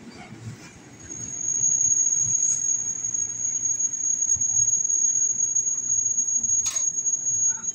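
Brakes of an ex-JR 205-series electric commuter train squealing with one steady high-pitched tone as it slows to a stop at the platform, with a single sharp click near the end.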